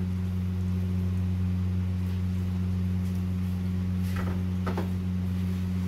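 A steady low hum that does not change, with a couple of faint soft sounds about four seconds in.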